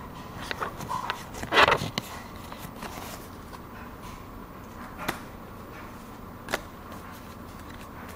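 Pokémon trading cards being handled and set down: a brief rustling scrape about a second and a half in, then two sharp clicks later on.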